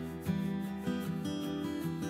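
Background music played on acoustic guitar, plucked notes and chords.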